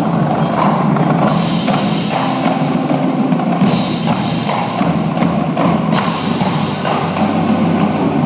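Winter drumline ensemble playing: drums and percussion over steady low sustained pitched tones, with several loud accented hits that leave a bright wash, about a second, three and a half and six seconds in.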